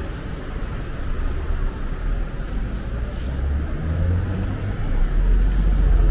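Street sound dominated by the low, steady rumble of a motor vehicle engine close by, growing louder near the end.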